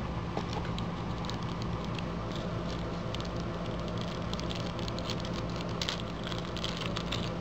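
Clear plastic wrapper crinkling as hands handle and unwrap a small accessory, a run of small crackles that gets busier in the second half, over a steady low hum.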